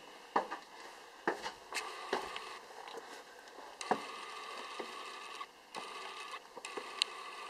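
Footsteps on a stone floor in a small stone chamber: about six sharp, irregular knocks over a steady low hiss.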